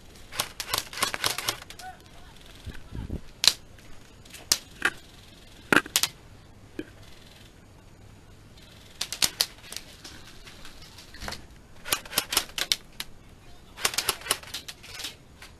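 Airsoft guns firing: several short bursts of rapid clicking shots, with single shots in between.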